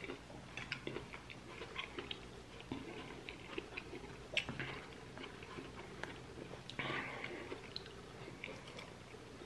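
Close-miked chewing of a mouthful of bean stew and pork rib meat, with wet mouth clicks and occasional light clinks of a metal spoon in a glass bowl. A sharper click about four and a half seconds in and a short breathy sound near seven seconds.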